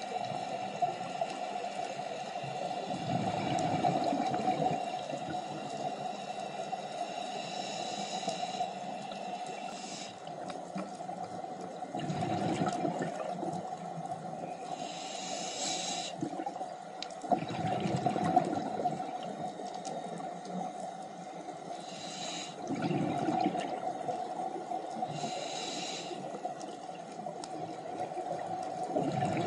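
Scuba diver breathing underwater through a regulator: higher-pitched inhales alternate with bubbling exhale bursts, about one breath every five to six seconds, over a steady underwater hum.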